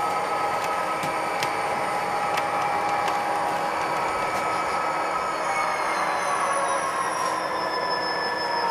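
HO-scale model train rolling slowly along the track: a steady hum of wheels and motor with a thin whine that falls slowly in pitch over the last few seconds. A few sharp clicks, mostly in the first three seconds, as the wheels cross rail joints.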